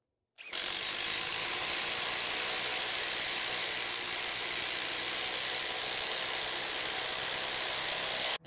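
Bosch IDH182 'Freak' brushless 18 V impact driver hammering steadily as it drives a long TimberLOK structural screw into stacked lumber. It starts about half a second in, holds an even pitch and level for about eight seconds, and stops abruptly as the screw seats.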